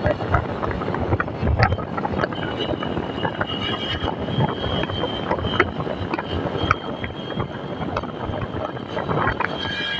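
Moving vehicle's road and wind noise on a mountain road, an even rumble and hiss with scattered short clicks and rattles. A thin, steady high tone joins about two seconds in.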